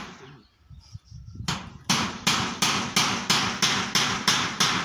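Hammer driving nails on a roof job: after a short lull, a steady run of sharp blows starts about a second and a half in and goes on at about three strikes a second.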